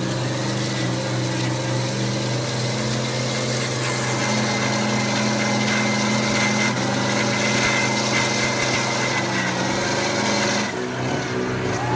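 Big truck engines idling steadily, an even low drone with no revving. Near the end the high hiss drops away and the drone changes.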